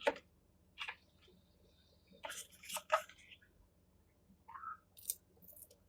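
Faint, scattered clicks and rustles of hands handling small plastic kit parts and double-sided tape, with a few sharper clicks in the middle and near the end.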